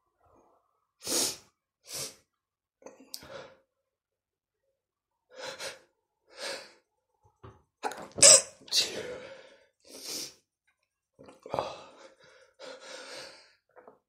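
A man sneezing over and over in a fit, about a dozen sneezes and sharp breaths with short silences between. The loudest sneeze comes about eight seconds in.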